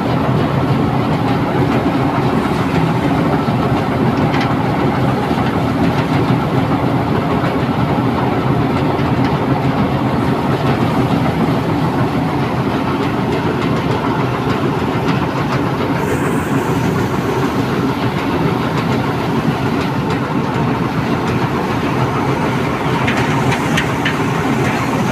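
Belarus tractor's diesel engine running steadily under load, driving a thresher whose threshing drum and shaker keep up a continuous, rapid clatter.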